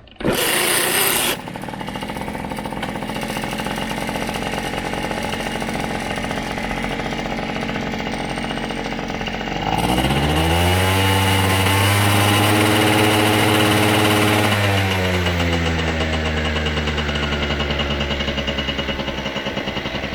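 A TGB Bunny 50cc scooter engine, just rebuilt with new variator weights, starts with a short loud rasp and settles into a steady idle. About ten seconds in the throttle is opened: the engine revs up, holds high for several seconds, then drops back to idle.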